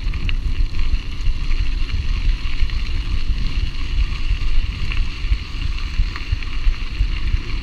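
Steady wind rush and low rumble on the microphone of a camera riding on a moving mountain bike, with the tyres rolling over a gravel road and a few faint clicks.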